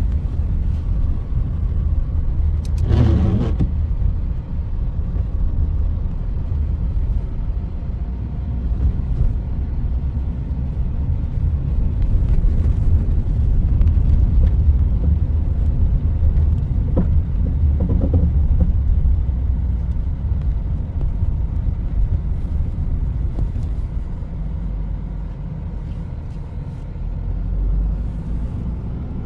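Steady low rumble of a small car driving slowly on packed snow on snow tyres, heard from inside the cabin. A brief wavering higher-pitched sound rises over it about three seconds in, and a fainter one comes later.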